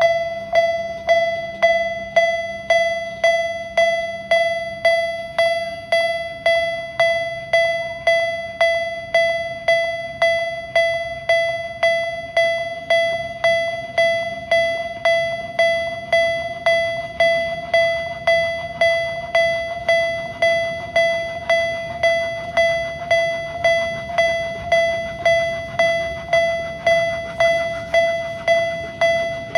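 Japanese railroad crossing alarm on a mini-train line, ringing its repeated single-pitch 'kan-kan' bell tone, about three strikes every two seconds, each strike fading before the next: the crossing is warning of an approaching train.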